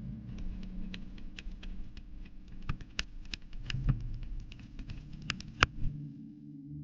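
A rapid, irregular patter of small clicks and taps over a steady low hum, with a few sharper, louder clicks in the middle of the run.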